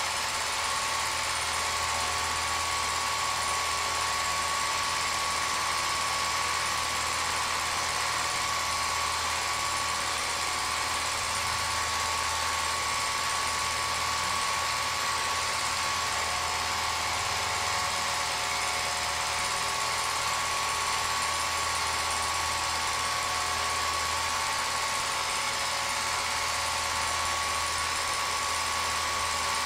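Home-movie film projector running: a steady motor whir with a constant high tone and low hum.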